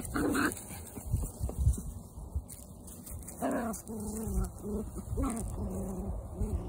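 Two puppies play-fighting, giving short yelps and then a run of wavering growls and whines from about halfway through, over low thumping.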